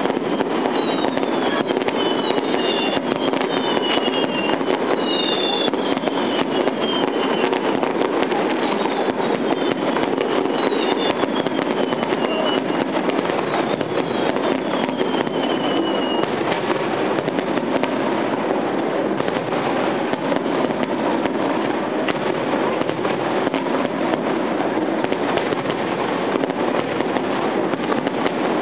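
Fireworks finale barrage: a dense, unbroken din of shell bursts and crackling from many fireworks going off at once. High whistles gliding downward repeat through the first half.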